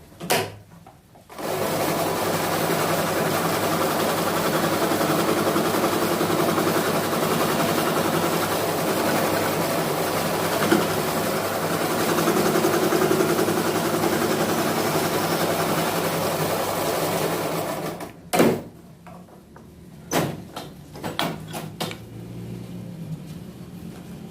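Scroll saw running steadily as it cuts out letters in a wooden name plate, then stopping about eighteen seconds in, followed by a few sharp knocks.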